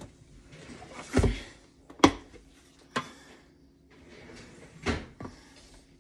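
Scattered knocks and clunks of kitchen utensils being handled while flour is measured out: a metal measuring cup and containers set down and bumped on the counter. The sharpest knock comes about two seconds in.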